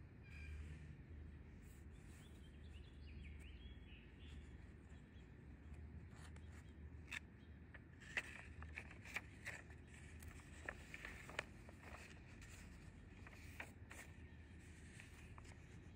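Thin paper catalogue pages being handled and turned: a run of sharp little paper clicks and crackles in the middle of the stretch, over a faint, steady low hum of outdoor background.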